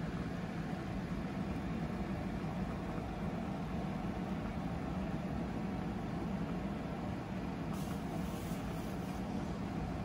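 Steady low rumble of a covered pot heating over a lit gas stove burner, the flame running under the pot without a break.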